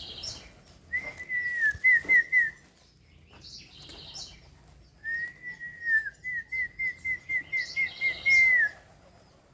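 A person whistling two phrases, a short one and then a longer one. Each is a held note that breaks into a quick warble of repeated notes. A few brief, higher chirps fall between the phrases.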